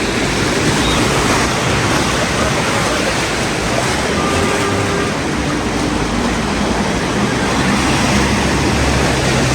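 Steady rushing noise of heavy rain mixed with traffic on a wet, flooded road.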